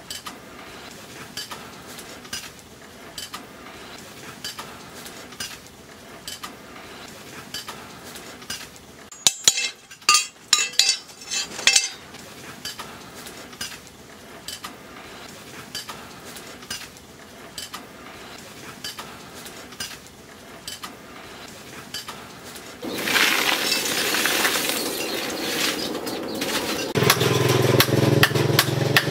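Light metallic clinks and scrapes from a steel chainsaw guide bar being handled and marked, with a run of loud ringing clinks about ten seconds in. Near the end a steady hiss comes in, followed by a low hum.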